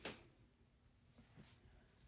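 Near silence: room tone, with two faint ticks just past a second in.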